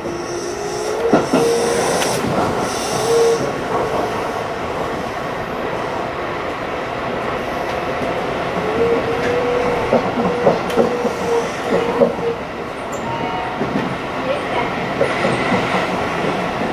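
Electric commuter train running on curving track, heard from inside the front car: a steady rumble of wheels on rail with scattered sharp clicks from the rail joints. A steady high squeal from the wheel flanges grinding on the curve rises over it in the first few seconds and again from about eight to twelve seconds in.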